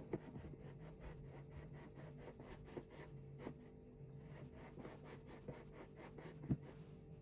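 Metal spoon spreading and swirling soft hummus on a plate: faint, quick scrapes and light clicks of the spoon against the plate, with a few sharper clicks.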